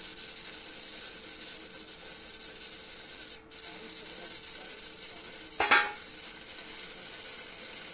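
Electric arc welding on a pipe in the 6G position: a steady high crackling hiss from the arc, briefly breaking off about three and a half seconds in. A short, louder pitched sound stands out about five and a half seconds in.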